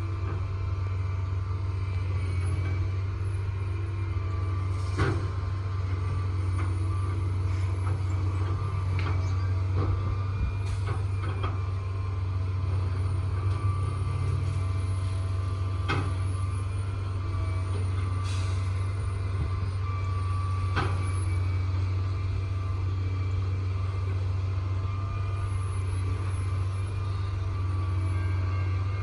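Diesel engines of heavy construction machinery running steadily, a constant low hum with a faint steady whine above it. Occasional sharp knocks and clanks sound through it.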